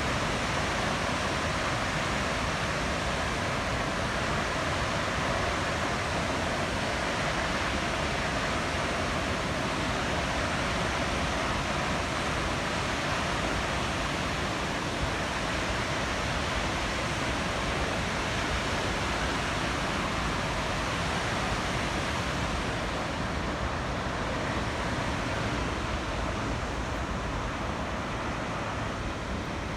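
Steady, unbroken rush of water pouring from a dam.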